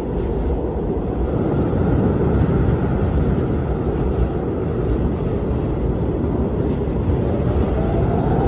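Strong wind blowing steadily, a dense low rushing noise without gusts or breaks.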